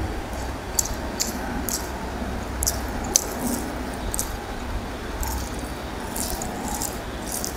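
Wet squishing and clicking as fingers mix rice with potato and egg curry on a plate and food is eaten by hand, in short uneven bursts a few times a second. A steady low rumble runs underneath.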